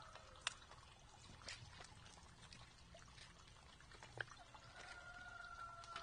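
Wild turkeys pecking at seed in metal and wooden feeders: faint, scattered sharp taps and ticks, the loudest about half a second in. Near the end a drawn-out, slightly falling whistle-like tone begins.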